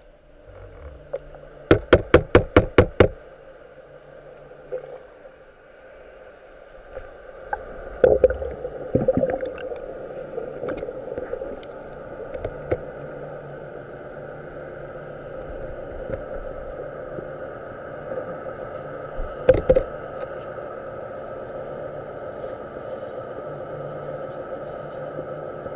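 Underwater sound with a steady hum, broken by sharp knocks: a quick run of about nine knocks about two seconds in, a few more around eight to nine seconds in, and two near twenty seconds in.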